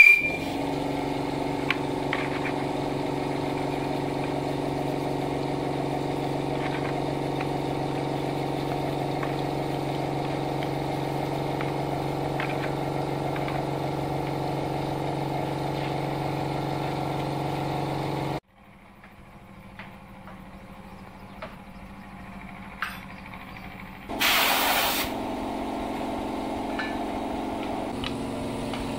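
A steady engine-like mechanical drone that cuts off abruptly about two-thirds of the way through. After it comes quieter background with a few light clicks, then a brief hiss, and a lower steady drone starts again near the end.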